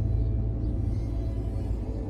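Background music: a dark, sustained ambient drone with a heavy low bass and several held tones above it.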